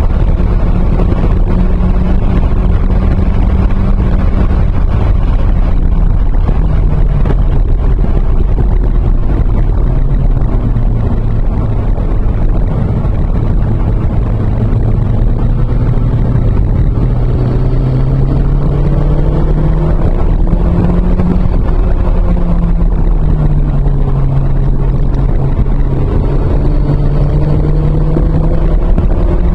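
Cabin view of a 1993 Toyota MR2 Turbo's turbocharged 2.0-litre four-cylinder engine driven hard on track. Its pitch falls as the car brakes and slows for a corner, then climbs in steps as it accelerates through the gears, over a constant loud rush of wind and road noise.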